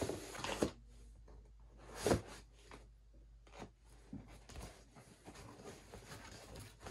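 Long cardboard shipping box being handled: a few knocks and scratchy scrapes of cardboard, the loudest about two seconds in, as it is stood on end and its top flaps are worked open.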